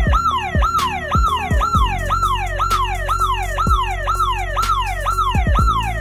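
Security alarm siren sounding in quick repeated falling sweeps, about two a second, set off by the remote monitoring against an intruder. Music with deep sliding bass notes plays underneath.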